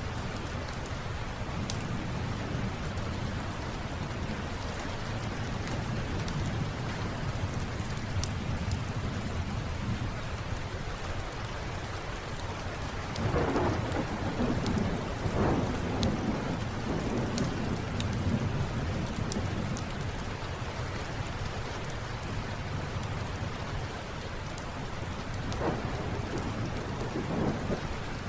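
Steady rain with a low rumble of thunder underneath, which swells louder about halfway through and again near the end. A scatter of small sharp crackles from a wood fire runs over it.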